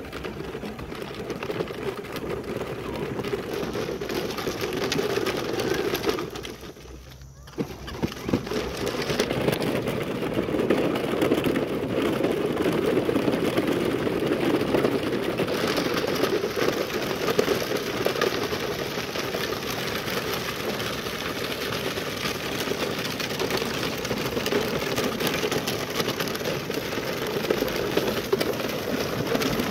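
The hard plastic wheels of a child's pedal tractor and its long train of toy trailers rolling over a gravel track, making a steady rough noise. The noise drops away briefly about six seconds in, then resumes.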